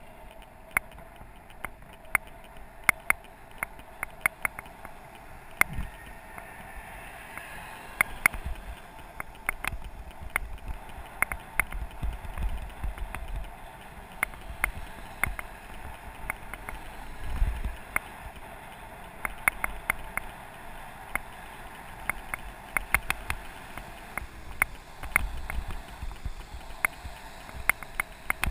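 Mountain bike riding along a paved road: steady wind and tyre noise with low gusty rumbles, and many irregular sharp clicks and rattles throughout.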